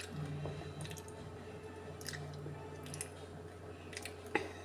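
A person eating ice cream off a metal spoon: wet mouth and chewing sounds, with a few sharp clicks of the spoon, and a low hum that comes twice.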